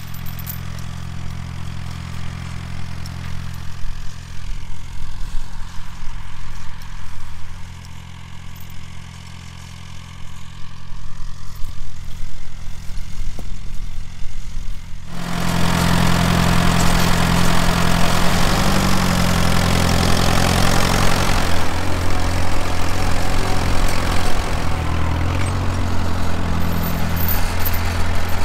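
A vehicle engine idling, a steady low hum. About fifteen seconds in it grows louder and a rough hiss joins it.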